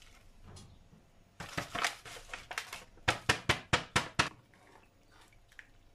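Plastic soup-mix packet crinkling and rustling as powdered asparagus cream soup is shaken out of it into a pot of broth. A quick run of about seven sharp taps, a little over a second long, comes about halfway through.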